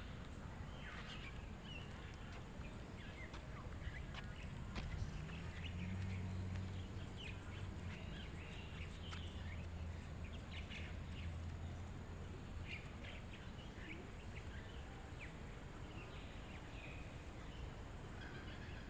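Birds chirping and calling in short scattered bursts over a background of outdoor ambience. A low steady hum comes in about a quarter of the way through and fades out a little past the middle.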